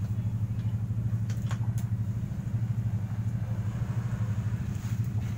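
Steady low motor rumble with a fast flutter, with a few faint clicks about one and a half seconds in.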